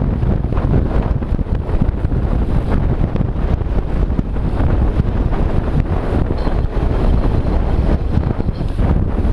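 Wind buffeting the microphone of a camera riding on a moving bicycle: loud, steady rushing noise, heaviest in the low range, flickering constantly with no breaks.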